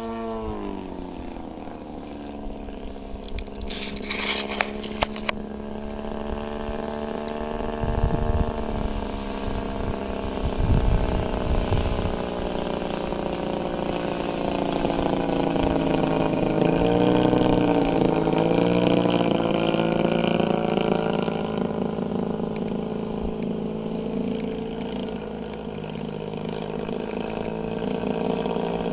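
Engine of a 33%-scale Aeroworks Extra 300 radio-control aerobatic plane in flight. Its pitch drops as the throttle comes back just after the start, then holds steady, and wavers up and down about midway as the plane manoeuvres.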